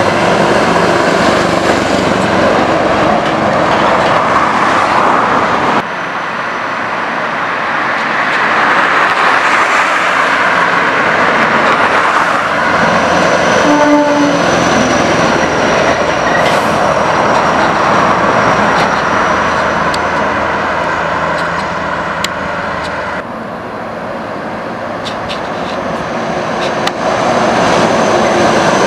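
Scania 164 480's V8 diesel engine running under way as the truck and trailer drive past, in several separate pass-bys joined one after another. The sound changes abruptly about six seconds in and again a little after twenty seconds.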